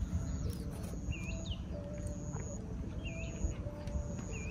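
Birds calling: a short hooked chirp repeating about every two seconds, with a high thin note coming back roughly once a second, over a steady low rumble of outdoor background.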